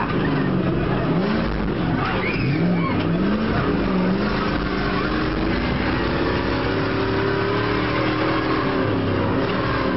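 Monster truck engine running hard, heard from inside the cab over loud road and body noise; its pitch swings up and down in the first few seconds, then climbs slowly and steadily.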